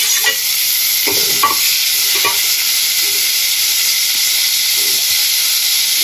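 Chopped onions, tomato and green chillies sizzling steadily in hot oil in a steel kadhai, being fried down until soft. A steel spoon stirs and scrapes against the pan, with the scrapes most frequent in the first two or three seconds.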